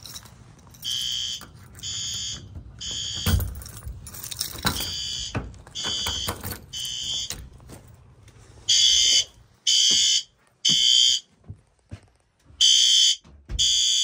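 Fire alarm horns sounding the temporal-three evacuation pattern: three short blasts about a second apart, a pause, then three more. They are fainter at first over a low rumble, then much louder from about nine seconds in.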